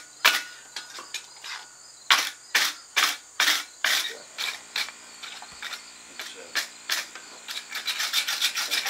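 Wire brush scrubbed back and forth across the steel of a froe eye on the anvil, cleaning off scale around the weld area before forge welding. The scraping strokes come about two a second at first, then in a quicker run near the end.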